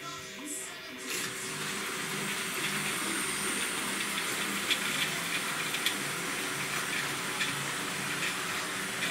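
Electric model trains running on a three-track layout: a steady whirring rush of wheels and motors on the rails that builds about a second in, with a few light clicks as the wheels pass over the track.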